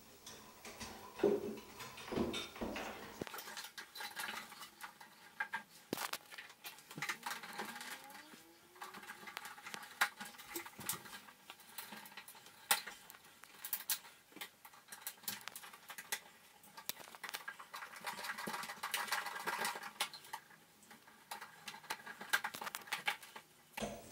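Irregular small clicks, taps and scrapes of hand work on a wall light fixture: the wires being pushed into the electrical box and the fixture's mounting screws being driven in.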